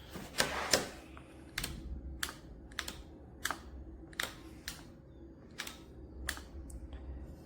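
A string of about a dozen sharp clicks at irregular intervals, the two loudest in the first second: buttons on the cordless mower's controls being pressed.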